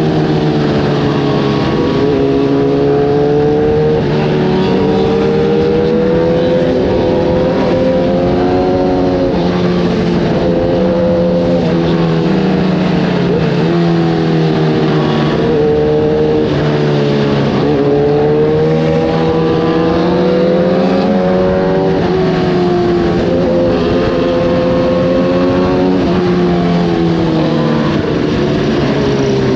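Kawasaki ZX-10R's inline-four engine through an Arrow racing exhaust, running continuously under way. Its pitch rises and falls as the throttle opens and closes, with several brief dips along the way.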